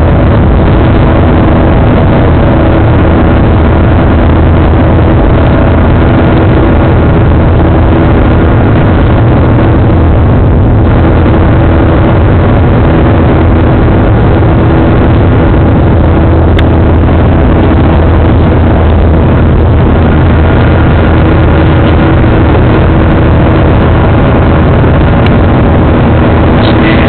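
Jet airliner engines running steadily at high power, heard inside the passenger cabin as a loud, even roar with a deep hum and steady tones.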